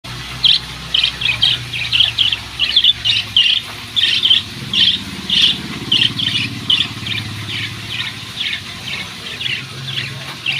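Lovebirds chirping: a steady run of short, high-pitched calls, about three a second, growing a little fainter in the second half, over a low steady hum.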